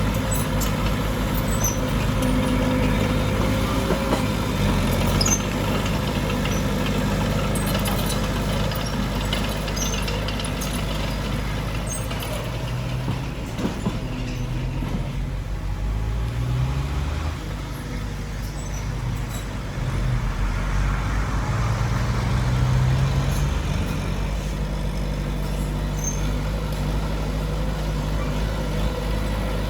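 Diesel engines of heavy earthmoving machinery, a bulldozer and dump trucks, running and working under load, the engine pitch rising and falling a few times in the second half.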